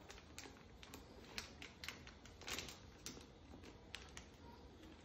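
Faint, irregular small clicks and crinkles from a rapid antigen test card and its packet being handled and opened, with a slightly longer rustle about halfway through.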